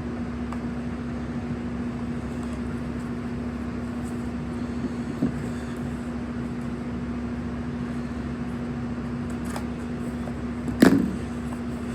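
Steady machine hum with one constant low tone, like a room fan or air conditioner running. A small knock about five seconds in and a louder, sharper knock near the end.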